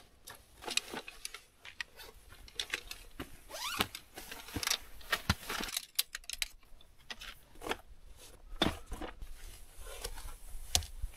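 Irregular clicks, rattles and crinkling rustles of camping gear being handled, as a folding chair is set up.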